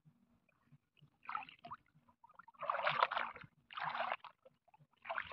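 Water splashing and sloshing as legs wade through shallow water: four short splashes about a second apart, the loudest near the middle.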